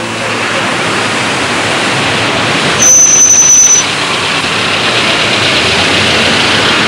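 Street traffic noise, a steady rush of passing cars, with one loud high-pitched squeal about three seconds in that lasts about a second.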